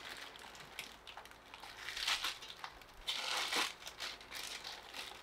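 Clear plastic packaging bag crinkling as a stainless steel strainer part is pulled out of it, in a few short bursts of rustling, the longest about three seconds in.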